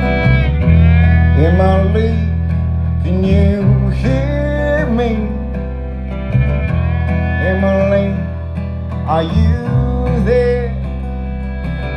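Live country band playing an instrumental passage on fiddle, acoustic guitar, electric bass and drums, the melody bending and sliding in pitch.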